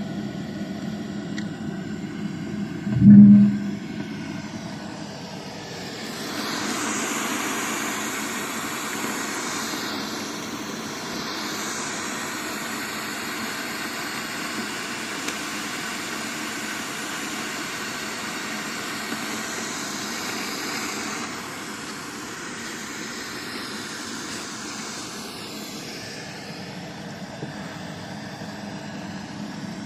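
Sound picked up from an 18 m deep borehole casing, played through a speaker: a steady low rumbling noise. The group takes it for a sound from underground, and the Defense Ministry says it is wind. There is a single heavy thump about three seconds in, and a broad rushing swell builds at about six seconds and dies away by about twenty-six.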